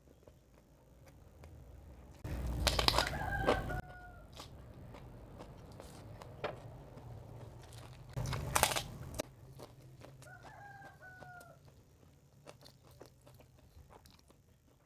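A rooster crows twice in the background, once about three seconds in and again about ten seconds in. Two louder bursts of close-up crunchy chewing come about two and eight seconds in.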